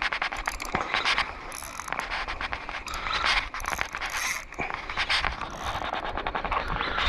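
Spinning reel working against a hooked fish: fast, continuous mechanical clicking and grinding from the reel's gears as the line is fought in.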